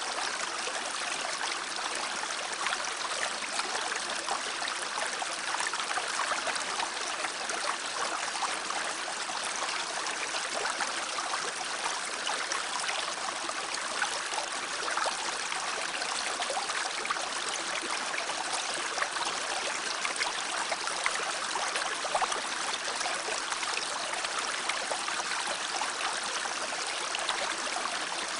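A stream running, a steady rush of flowing water.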